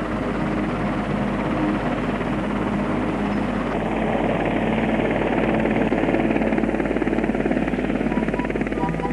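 Twin-turbine Westland Wessex helicopter running steadily in flight, its rapid rotor beat over a steady engine hum, growing slightly louder about six seconds in.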